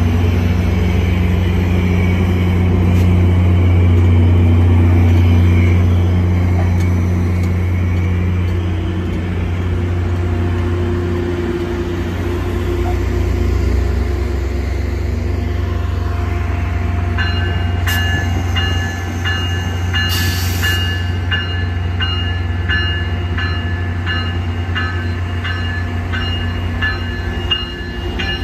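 Metrolink diesel locomotive's engine running with a steady low drone. A little past halfway the locomotive bell starts ringing at a regular beat of about one strike a second, with a short hiss about a second into the ringing.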